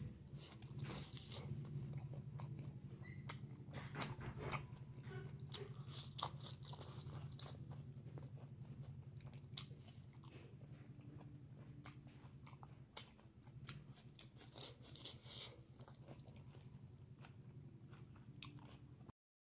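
Close-miked chewing of pork and bamboo shoots: wet mouth clicks and crunches, over a steady low hum. The sound cuts off abruptly near the end.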